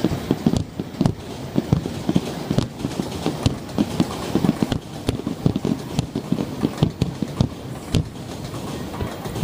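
Aerial fireworks shells bursting in rapid, uneven succession: several dull booms a second, overlapping, with now and then a sharper crack.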